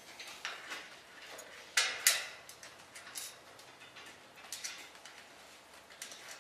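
Light clicks and knocks from screws, washers and a light kit being handled and fitted to a metal scooter rack. There are about half a dozen sharp taps, the two loudest close together about two seconds in.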